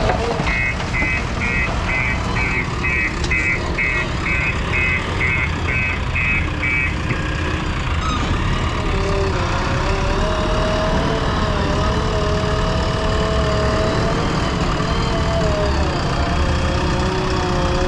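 JCB 3DX backhoe loader's diesel engine running steadily under load. A reversing alarm beeps about twice a second for the first seven seconds or so, and from about halfway a wavering whine rises and falls over the engine.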